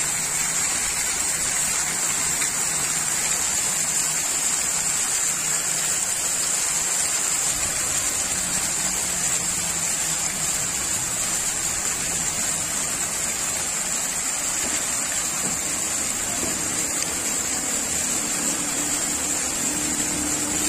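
Rows of fountain jets spraying and splashing back into a long pool: a steady hiss and patter of falling water.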